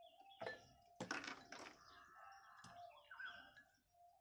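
Ice cubes dropped by hand into a glass of water: a few faint clinks against the glass, the loudest about a second in.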